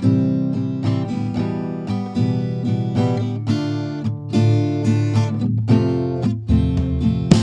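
Background music: an acoustic guitar tune, notes and chords struck one after another.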